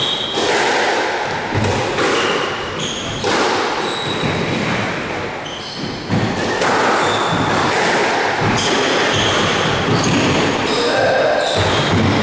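Squash rally: repeated sharp cracks of the small rubber ball off racquets and the court walls, with short high squeaks of sneakers on the wooden floor, echoing in the court.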